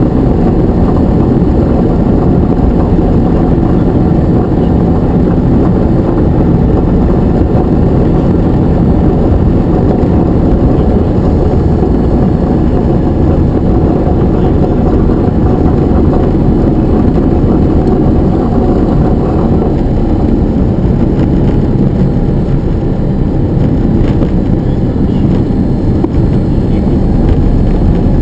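Diamond DA20 light aircraft's piston engine and propeller running steadily at low taxi power, loud and even throughout.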